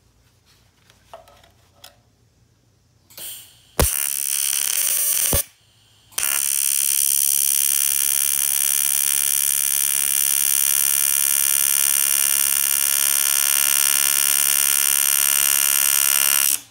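AC TIG welding arc on thin cast aluminum, set at 70 amps: a loud, steady electric buzz. A short arc strikes about four seconds in and runs about a second and a half, stops, then strikes again and runs about ten seconds before cutting off sharply near the end. A few light handling clicks come before the first arc.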